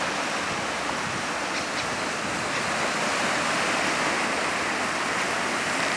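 Small sea waves breaking and washing over a rocky reef shore: a steady rush of surf.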